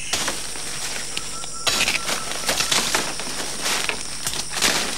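Dry leaf litter and undergrowth rustling and crackling as someone pushes through forest brush, the crackles growing denser about a second and a half in, over a steady high chirr of insects.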